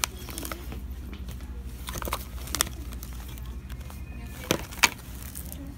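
Close handling noise as squishy toys are picked up and squeezed in a store bin: rustling and several sharp clicks from fingers and plastic against the phone, over a steady low hum and faint background music.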